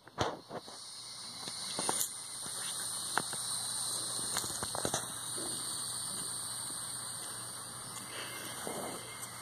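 Kittens playing with a crumpled bag on a concrete step: scattered light crackles, taps and rustles as they paw at it and scamper, with a sharper knock right at the start.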